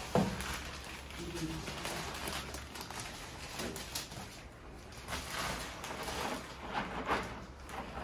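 Irregular rustling and scuffing of a plastic bag and gloved hands working fungicide granules into potting soil in a large plastic pot, with one sharp knock just after the start.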